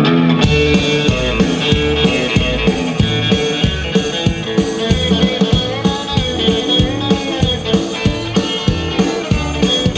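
Live country band playing an instrumental intro: electric guitars over upright bass and a drum kit keeping a steady beat.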